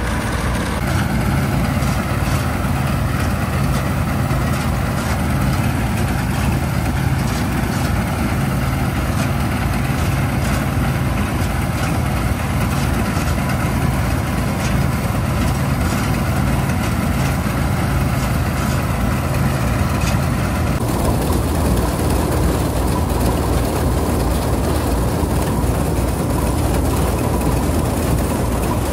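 Diesel engine of a Bizon Super Z056 combine harvester (1985) running steadily. Its sound changes abruptly about two-thirds of the way through, then carries on steady.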